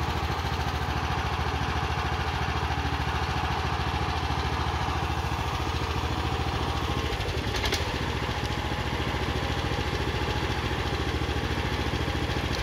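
The single-cylinder 420 cc Briggs & Stratton engine of a stump grinder running steadily, with a brief clatter about eight seconds in.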